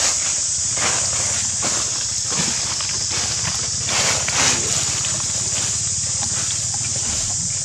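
Steady high-pitched insect drone, with brief rustles of dry leaves, the loudest about four seconds in.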